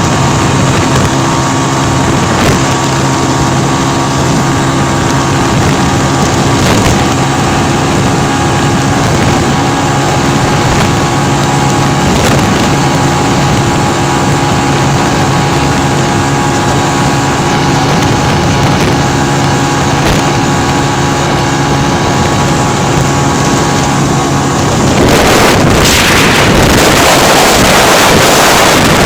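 Spark SP200R-28 motorcycle engine running at steady high revs in a flat-out top-speed run, with wind noise on the microphone. About 25 seconds in, wind buffeting gets louder and drowns out the engine.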